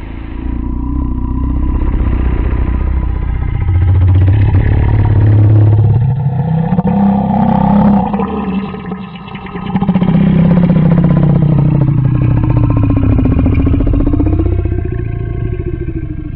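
Monster vocal sound effect: a long, deep growl whose pitch slides up and down, breaking off briefly about nine seconds in before rising again.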